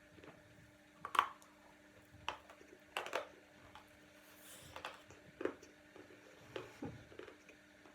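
A dry, chalky mineral lump being bitten and chewed: about seven sharp, irregular crunches, the loudest about a second in and around three seconds in.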